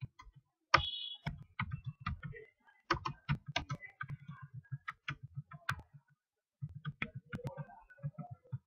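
Computer keyboard and mouse clicking in rapid, irregular runs of several strokes a second, with a short pause about two-thirds of the way through.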